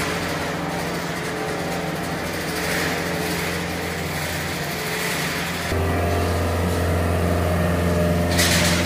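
John Deere 325G compact track loader's diesel engine running steadily with a strong low hum as the machine drives, carrying a loaded crate on its forks. The engine gets louder about six seconds in, and a brief rush of noise comes near the end.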